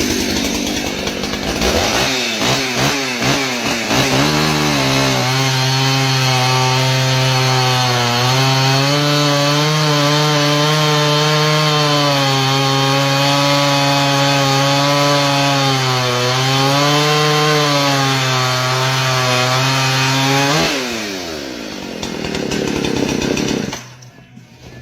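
Large-displacement two-stroke chainsaw revved a few times, then held at full throttle through a long cut in wood, its pitch dipping slightly under load. Near the end the throttle is released and the engine winds down.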